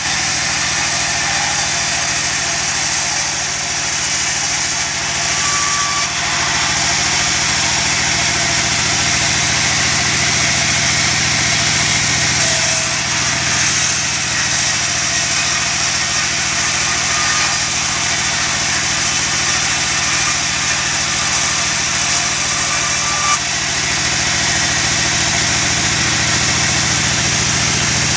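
Large vertical band sawmill running steadily, its motor and blade giving a continuous loud mechanical drone and hiss as a log is fed into the blade.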